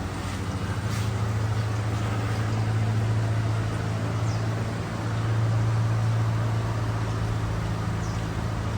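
A motor or engine running steadily with a constant low hum, swelling slightly a few seconds in and again near the middle.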